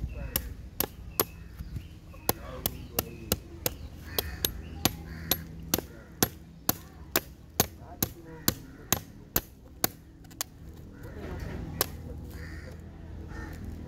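Chopping with a blade against a hard surface, sharp regular strokes about two and a half a second, with a brief pause near the start, stopping about ten seconds in.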